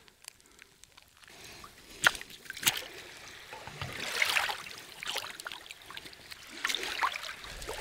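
Water sloshing and splashing, with a few sharp knocks and a louder wash of water about four seconds in.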